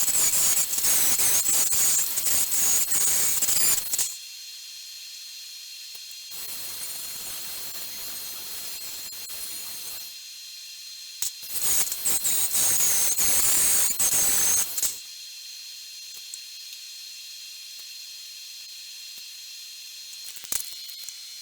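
Angle grinder with a sanding wheel grinding a metal patch piece, in two bursts of about four seconds each. A steady quieter hiss runs between the bursts.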